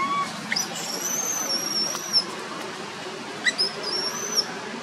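Infant long-tailed macaque giving two long, high-pitched squealing cries. The first starts about half a second in and lasts about a second and a half; the second is shorter, near the end. These are distress cries of a baby whose mother will no longer nurse it.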